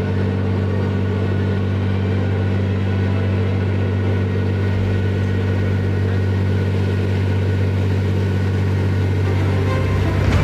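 Heavy multi-axle missile launcher vehicle's diesel engine running with a steady low drone.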